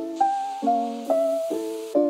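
Instrumental background music: a keyboard melody of single notes struck one after another, about two a second, each fading after it is struck.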